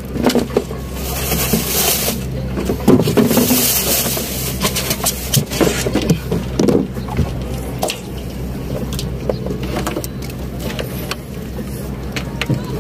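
Small outrigger boat's engine running with a steady low hum, with scattered knocks and rustles as fishing gear is handled aboard.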